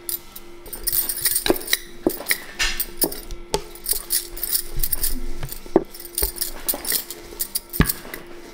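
Rolling pin working parotta dough flat on a board, with a knock every second or so and the jingling clink of metal bangles on the wrists as the hands push back and forth.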